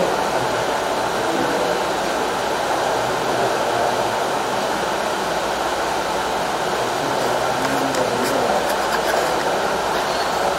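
Steady rushing, hissing background noise with no change in level, with a few faint clicks near the end.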